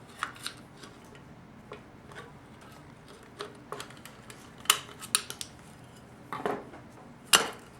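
Metal parts of a 4L60E transmission pump clicking and clinking as they are handled and pulled out of the pump body. Scattered sharp clicks, loudest twice, a little under five seconds in and near the end.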